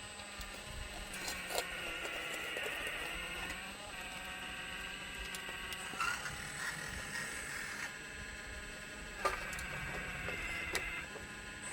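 Radio-controlled scale model excavator working: a steady electric whine of its motors and hydraulic pump under a constant hum, rising in stretches as it moves, with a few sharp clicks.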